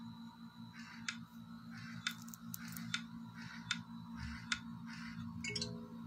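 Cartoon soundtrack played through a smartphone's small speaker: a steady beat of sharp clicks about once a second with soft swishes between them, and a brief pitched sound effect near the end.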